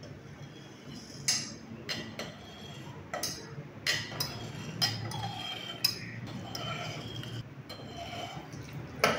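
Knife cutting set mango jelly in a ceramic baking dish, the blade tip clinking against the bottom of the dish several times at irregular intervals.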